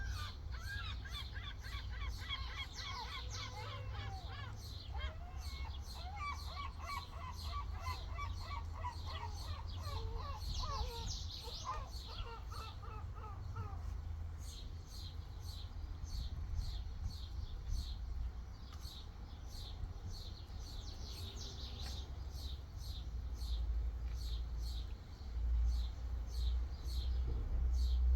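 Small birds chirping: a busy chorus of short twittering chirps for the first half, then a single high chirp repeated about twice a second. A steady low hum runs underneath and grows louder near the end.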